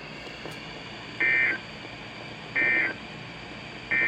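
NOAA Weather Radio SAME digital data tones: three short, identical bursts about 1.3 seconds apart over a steady radio hiss. They are the end-of-message code that closes the weekly test broadcast.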